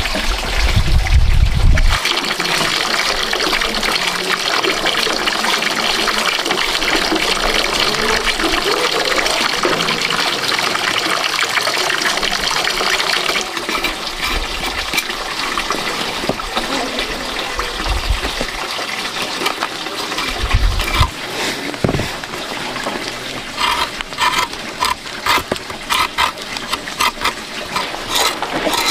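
Water running and splashing steadily. Near the end comes a run of short, regular strokes, about two a second.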